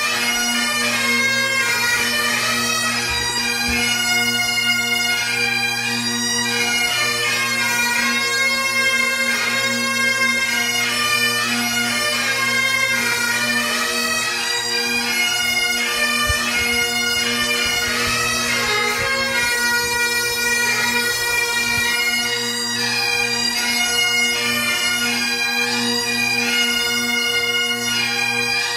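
Bagpipes playing a tune over steady drones.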